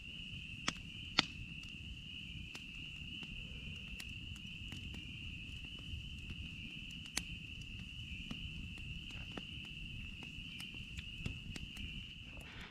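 A steady, high-pitched chorus of calling frogs, typical of spring peepers at ice-out, holding one unbroken pitch over a low rumble. A few small sharp clicks and pops come through it, the loudest about a second in.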